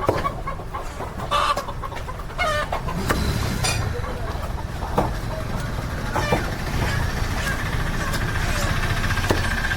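Live country chickens clucking, with a few sharp knocks about halfway through and near the end, over a steady low rumble.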